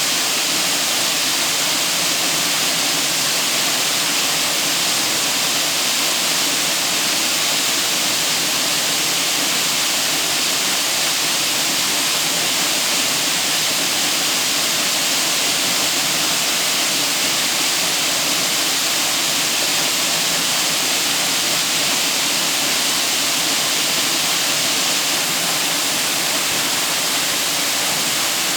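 Waterfall pouring into a gorge: a steady, loud rush of falling water that holds unchanged throughout.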